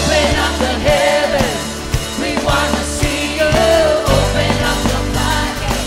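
Live worship band music: a singer's voice over strummed acoustic guitar and drums, with a full low end underneath.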